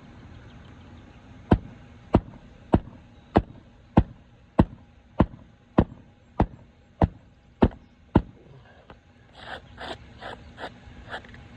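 Hammer driving a roofing nail through an asphalt shingle: about a dozen even strikes, a little under two a second, then a short flurry of lighter clicks and rattles near the end.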